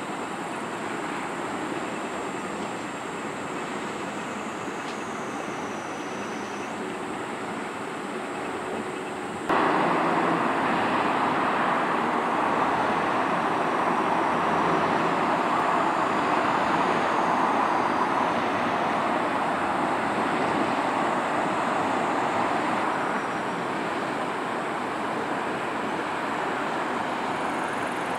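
Steady hum of road traffic. It gets suddenly louder about a third of the way in and eases back down later.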